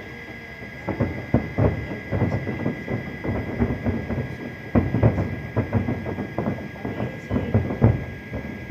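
Fireworks going off in a rapid, irregular barrage of bangs and pops, starting about a second in.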